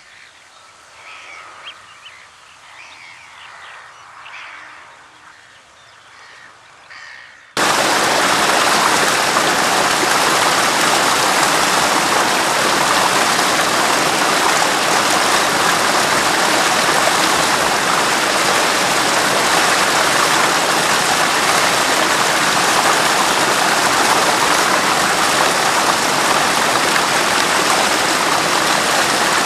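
A few short calls of Eurasian coots over quiet water, then about seven seconds in a loud, steady rushing hiss cuts in suddenly and covers everything else.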